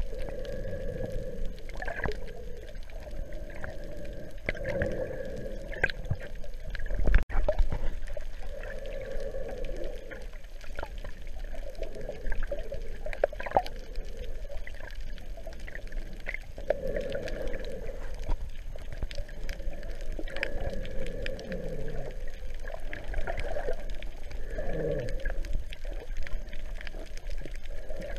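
Muffled underwater water sounds picked up by a GoPro in its waterproof housing: water sloshing and gurgling in irregular swells every few seconds, with one sharp knock about seven seconds in.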